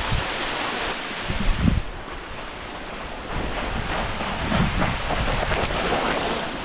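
Steady rush of a small waterfall running down rocks, with wind buffeting the microphone in two low gusts.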